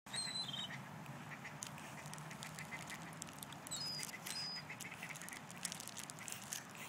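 Ducks quacking among a flock of waterfowl at a pond's edge, with short high bird chirps, a few brief whistled notes near the start and about four seconds in, and a low steady hum underneath.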